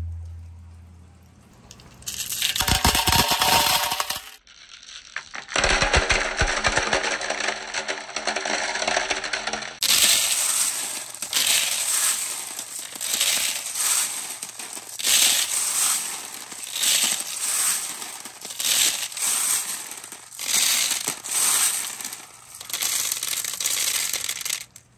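Glass marbles clattering as they are scooped by hand in a plastic basket and dropped in handfuls into a PVC pipe, the bursts coming about once a second in the second half.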